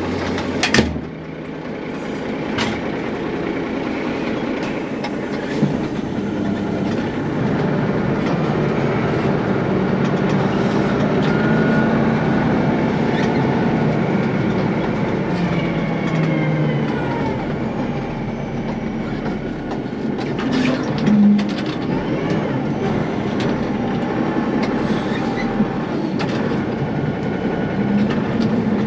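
A hay squeeze (bale-clamp machine) running, heard from inside its cab: a steady engine and hydraulic din with rattling and a few sharp clanks. The pitch rises and falls through the middle as the hydraulic levers are worked.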